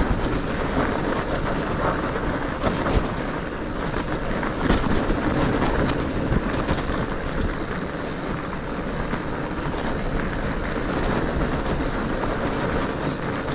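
Fat bike on studded tyres rolling along a snowy trail: a steady rumble of tyres and wind on the action camera's microphone, with scattered knocks and rattles as the bike goes over bumps.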